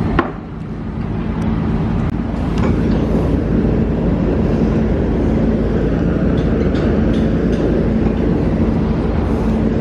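An engine runs steadily, giving a dense low rumble with a constant hum. A sharp click just after the start briefly cuts into it.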